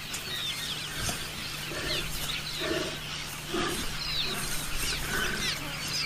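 Savanna bird chorus: many short, quick chirps throughout, with a few brief low sounds in the middle and a steady low hum underneath.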